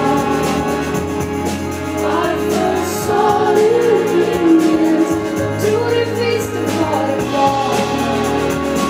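A woman singing a Swedish pop song live with her band, the sung melody moving over steady, sustained bass notes and a regular beat.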